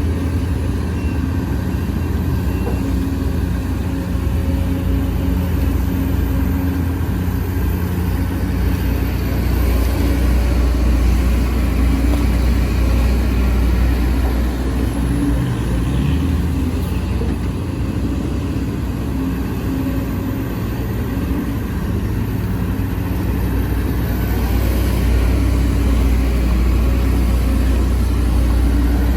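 Sumitomo SH210F excavator's diesel engine running steadily under working load, swelling a little louder twice as it digs and swings.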